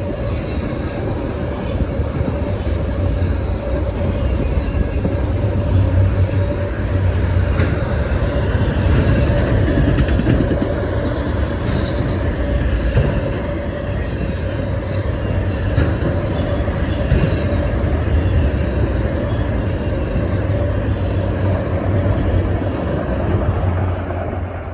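A train rolling past: the steady rumble of railroad cars on the rails, with a few brief sharp high sounds about halfway through.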